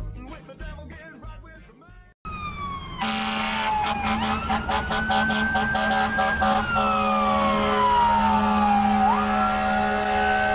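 Intro music fading out, then after a cut about two seconds in, a fire-rescue ambulance's electronic siren in a slow wail, sweeping down and up in long glides over a steady low tone.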